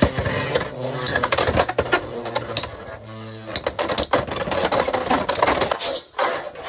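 Two Beyblade X tops, Scorpio Spear 9-60 Gear Point and Wizard Rod 9-60 Ball, spinning in a plastic stadium just after launch: a rapid, uneven run of sharp clicks and clacks as they collide with each other and ride along the stadium's toothed rail.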